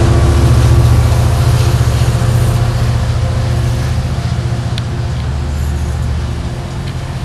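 Amtrak Pacific Surfliner bilevel passenger cars rolling past at close range: a steady low rumble that slowly fades.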